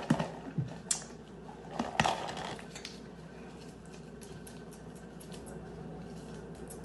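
A few knocks in the first two seconds as a plastic tub is handled and put down on the table, then the faint crinkle of a small folded paper slip being unfolded by hand.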